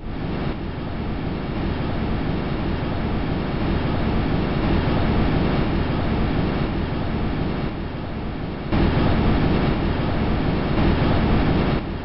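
Playback of the Huygens probe's audio recording from its parachute descent through Titan's atmosphere: a steady rushing noise with no clear pitch, which gets louder about nine seconds in.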